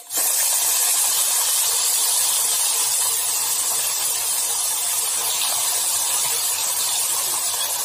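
Ground onion, ginger and garlic paste frying in hot oil in a kadhai: a loud, steady sizzle that starts suddenly as the paste hits the oil.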